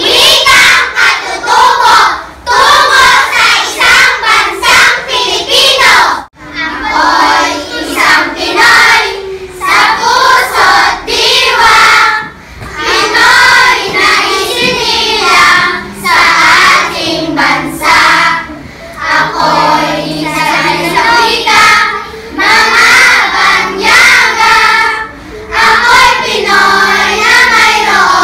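A group of schoolchildren singing together in unison, phrase after phrase with short breaks between.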